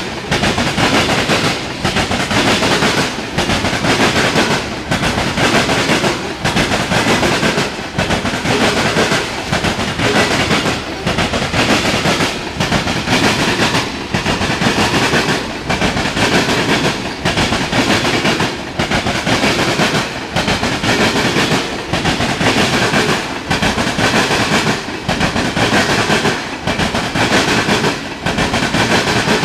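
Freight train of ethanol tank cars rolling past, loud and steady. A regular clickety-clack of wheels over the rail joints comes about once a second.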